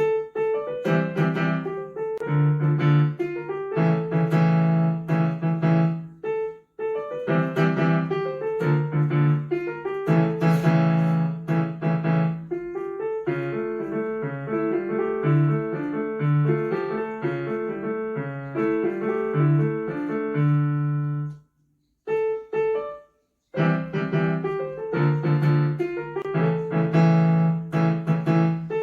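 Solo piano playing a simple piece of melody over a steady bass line. It breaks off briefly just before seven seconds in, then stops for about two seconds later on before carrying on.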